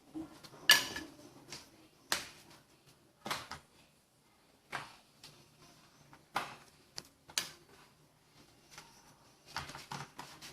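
Kitchen handling sounds: a series of separate light knocks and clatters about every one to one and a half seconds, as metal baking trays and utensils are moved about.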